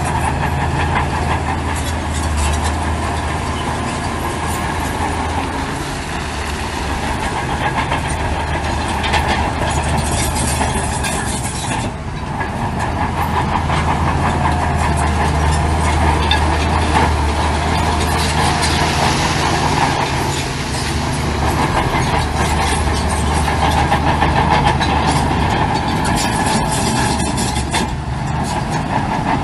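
Heavy diesel earthmoving machinery running steadily under load, with a constant low engine drone and frequent metallic clanking and rattling.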